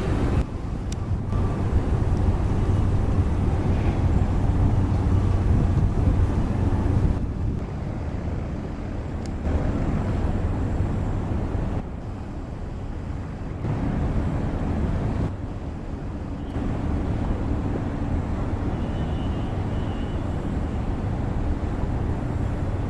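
Boat engine running with a steady low drone. The level jumps abruptly several times.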